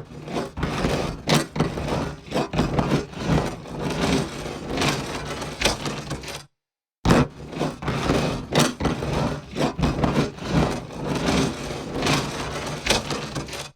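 Metal-on-metal grinding broken by heavy clunks, a dense run of scraping and knocks. It comes in two takes, each starting with a loud clunk, with a half-second gap of silence between them just past the middle.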